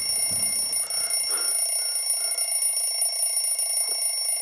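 Mechanical alarm clock ringing loudly and without a break.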